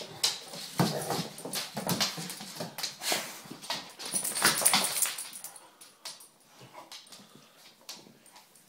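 Two Cane Corso dogs, a puppy and its father, play-wrestling: dog whines and yips mixed with scuffling and claws on a wooden floor. It is loud and busy for about five seconds, then dies down to a few scattered clicks.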